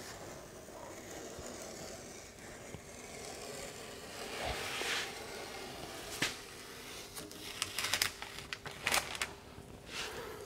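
Masking tape being peeled off a car's rocker panel while the freshly sprayed adhesive coat is still wet: a soft tearing rustle about halfway through, then a sharp click and a run of crackles and clicks near the end.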